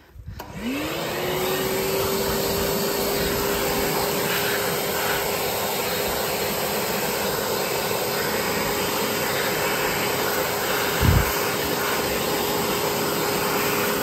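Electric leaf blower, running off a portable power station, starting up: its motor whine rises in pitch over the first second and then holds steady over a loud rush of air. There is a brief low thump about eleven seconds in.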